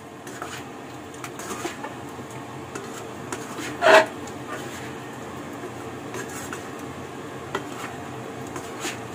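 Spatula clicking and scraping against a pan while stir-frying chayote and broccoli, over a steady hiss, with one loud ringing clank of metal on the pan about four seconds in.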